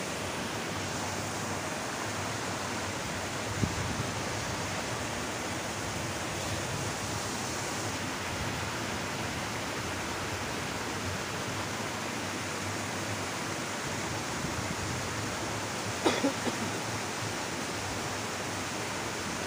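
Steady rush of water from a small cascade pouring into a muddy stream. About three seconds before the end, a short sliding voice-like whoop cuts in briefly.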